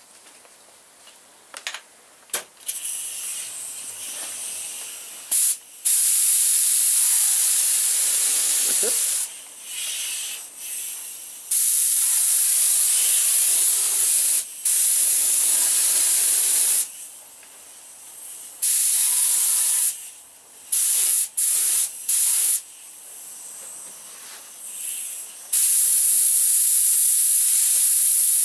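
Gravity-feed compressed-air spray gun, set to about 45 psi, spraying paint. It gives loud hissing blasts of one to four seconds, each starting and stopping sharply with the trigger, plus a few short quick bursts, laying a light first coat. A few light clicks come in the first couple of seconds.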